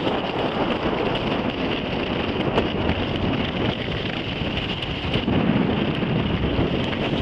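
Wind buffeting the camera microphone during a downhill ski run, mixed with the hiss and scrape of skis on packed snow.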